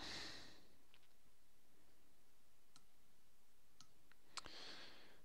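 A few faint, sharp computer-mouse clicks, spread out one by one, the loudest about four and a half seconds in. A soft breath at the start and another just after the loudest click.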